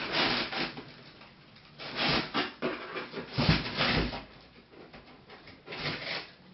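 Cardboard boxes and packaging being handled during an unboxing: four separate scraping, rustling bursts, the loudest about three and a half seconds in.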